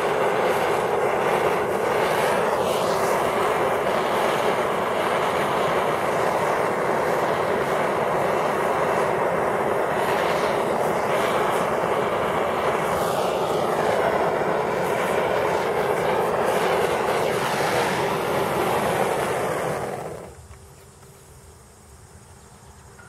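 Handheld gas torch blowing steadily on a burning polymer Glock magazine. It is shut off or taken away about 20 seconds in, and the sound drops sharply to a low background.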